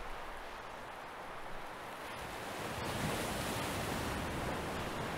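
Soft, even rushing of sea waves, swelling slightly about halfway through.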